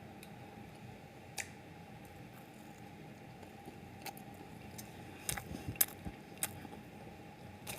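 Close-up eating sounds of a snack cake being chewed: scattered short, sharp wet clicks and crunches, bunched together a little past halfway, over a faint steady hum.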